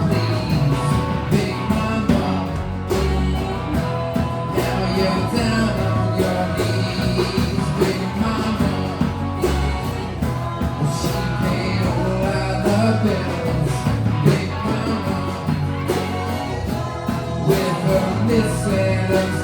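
Live rock band playing a song, with drums keeping a steady beat under bass and guitar.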